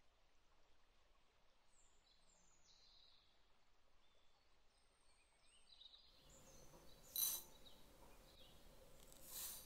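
Near silence with faint bird chirps for the first six seconds. Then a sharp clink about seven seconds in and a softer one near the end: a metal spoon knocking against a ceramic bowl as instant coffee granules are spooned in.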